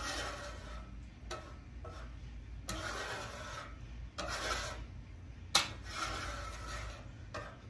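Metal scraper dragged across the steel cooktop of a Blackstone griddle in about five scraping strokes, pushing up excess oil, over a steady low hum.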